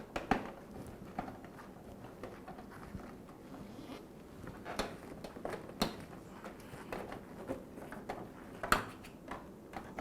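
Light handling noise with scattered sharp clicks and taps from a screwdriver and small plastic and metal parts, as the screws holding the dishwasher door lock are taken out; the loudest click comes near the end.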